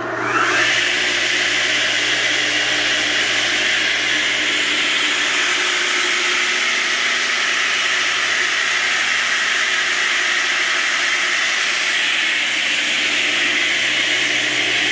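Delta 7.5 hp three-phase long-arm radial arm saw, running on a rotary phase converter, coming up to speed with a short rising whine. It then runs free, not cutting, with a loud, steady whir of motor and blade.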